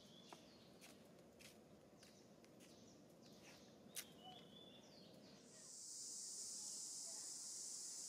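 Faint outdoor ambience with scattered small clicks and a couple of short chirps, then a little past halfway a steady high-pitched insect drone starts up and holds.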